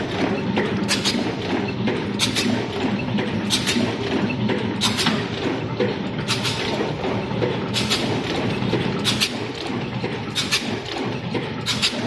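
Wire harness joint crimping machine cycling automatically, its crimp applicator striking with a sharp clack about every 1.3 seconds over a steady machine hum.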